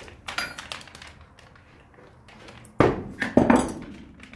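Red-hot AEB-L steel blade being set into metal quench plates for a plate quench: a short metallic clink about half a second in, then two heavy metal clanks close together near the three-second mark as the plates come down on the blade.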